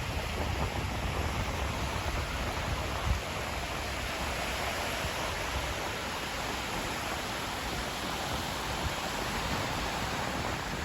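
Sea surf washing onto the shore as a steady, even rush of noise.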